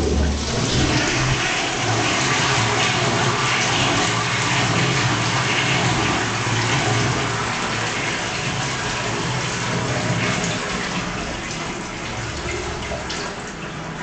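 Toilet with a wall-mounted cistern flushing: a thump as the flush is worked, then water rushing steadily into the bowl, easing off gradually over the last few seconds.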